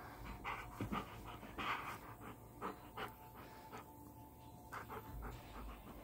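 A puppy panting in quick, uneven breaths while chewing and tugging a braided rope toy; the breaths come less often after about four seconds.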